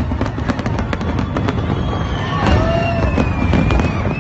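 Fireworks display going off in a dense run of bangs and crackling, over a constant low rumble, with a few thin gliding whistle-like tones from about halfway through.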